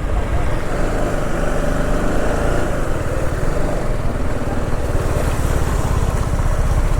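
Motorcycle engine running steadily while riding, its low pulsing under a steady rush of wind and road noise on the microphone.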